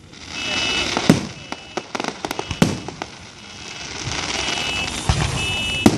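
Consumer fireworks going off: three sharp bangs about a second and a half apart, with a patter of crackling between the first two. A car alarm sounds a repeating high tone in the background.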